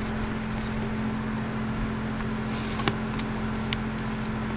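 Steady electric hum of a car's fan running with the engine switched off, with a couple of faint clicks around three seconds in.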